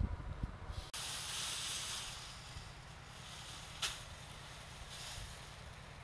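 A steady outdoor hiss sets in suddenly about a second in, is loudest for a second or so, then settles lower. A single sharp click comes a little before four seconds in.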